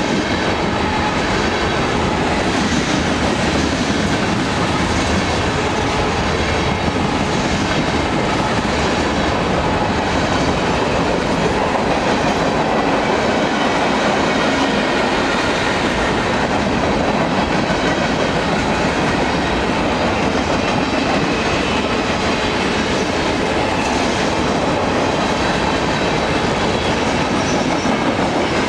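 Freight train cars rolling steadily past at close range: a continuous, loud rumble and clatter of steel wheels on the rails.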